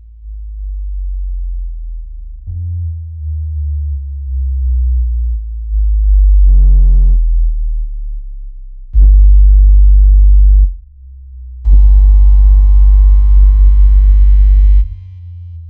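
Synthesized water-ejection tones for earbud speakers: very deep bass tones that step in pitch, meant to vibrate the speaker and push water out. A brief higher tone comes about six seconds in, then two loud buzzy stretches full of overtones, the second and longer one running about three seconds.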